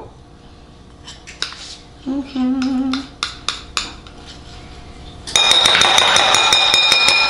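Metal spoon scraping peanut butter out of a small bowl into a glass mixing bowl, with scattered clinks and scrapes. About five seconds in comes a loud, steady scrape of the spoon against the glass, with a ringing tone in it.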